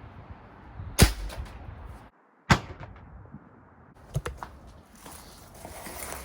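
A .30 calibre Hatsan Carnivore break-barrel air rifle firing a pellet: one sharp shot about a second in. After a brief break in the sound comes a second sharp crack, then a few lighter clicks.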